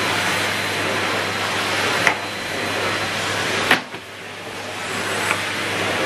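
Numatic Henry 160 canister vacuum cleaner running steadily on carpet, a constant rushing noise over a low hum. There is a sharp knock about two seconds in and another near four seconds; after the second knock the sound dips and builds back up within about a second.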